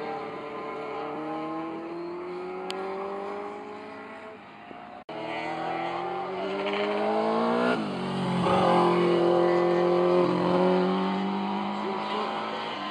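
Classic racing motorcycle engines accelerating past, their pitch climbing through the gears. The sound drops out for an instant about five seconds in, then a louder bike comes up, holds a high steady pitch for a few seconds and fades as it moves away.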